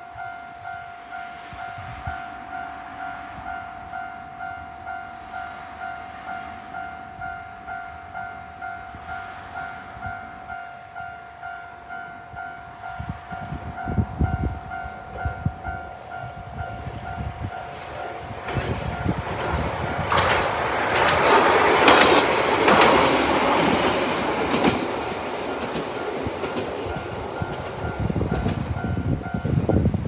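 A railway level-crossing alarm rings in a steady repeating pulse, about two strikes a second, while a diesel train of the Watarase Keikoku Railway approaches and passes, its noise loudest a little past the middle with the clatter of the wheels on the track. The alarm stops near the end as the train draws away.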